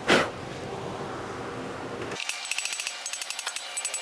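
Quick light hammer taps on an impact socket, driving a brass freeze plug into a Dart LS engine block. The taps come about ten a second with a metallic ring, starting about two seconds in; a brief loud falling whoosh comes at the very start.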